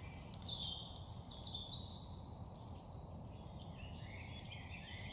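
Songbirds singing in woodland: faint, busy high warbling phrases that come and go, over a low steady background rumble.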